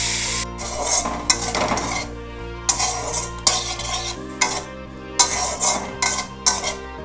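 A metal spoon stirs and scrapes raw banana cubes frying in a steel kadai, with sharp clinks against the pan about once a second. The frying hiss cuts off about half a second in. Steady background music plays underneath.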